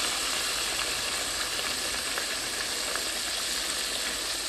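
Flour-coated neck bones deep frying in hot vegetable oil: a steady sizzle with faint small crackles.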